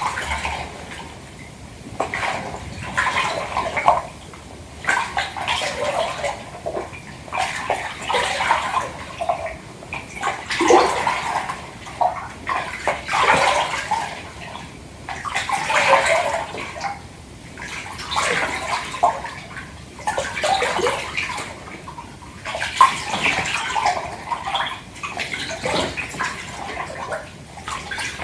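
Bath water sloshing in a tub, swelling into splashy surges every two to three seconds and settling between them.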